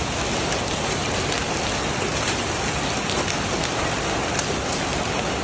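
Heavy rain and hail pelting a surface: a loud, dense, steady patter full of sharp clicks from individual hailstones striking.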